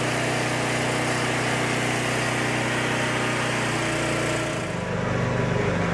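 A small engine running steadily, a low even hum under a constant hiss. About two-thirds through the hiss drops away and the low hum grows louder.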